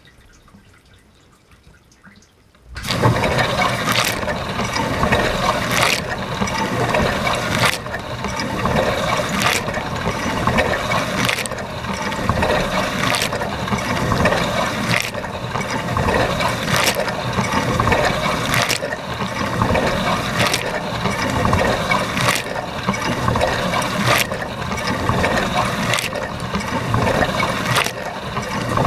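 Dishwasher wash cycle heard from inside the tub: faint dripping, then about three seconds in the water jets start suddenly and spray loudly and steadily, with a stronger surge of spray about every two seconds.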